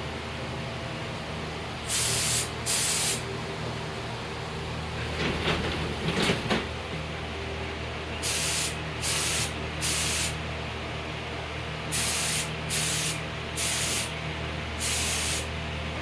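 Paint being sprayed in short bursts of hiss, about nine in all in quick groups, over a steady low hum. A brief rattling scuffle comes between the first and second groups.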